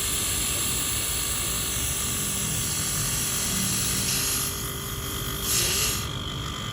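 Refrigerant gas hissing through a split air conditioner's service line during gas charging. It is steady until it drops off about four and a half seconds in, then a short, sharp hiss follows about a second later.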